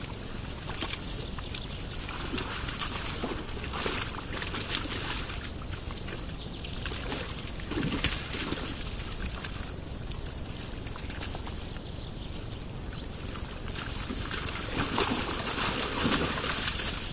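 Group of wild boar in a mud wallow: short low grunts and the squelch and slosh of wet mud as they shift, in a few bunches about 3, 8 and 15 seconds in, over a steady high hiss.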